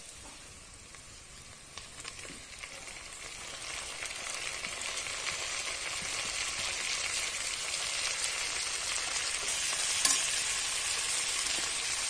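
Onions and freshly added sliced tomatoes sizzling in hot groundnut oil and ghee in a pressure cooker pan. The sizzle grows steadily louder over the first several seconds, with a couple of light clicks about two seconds in.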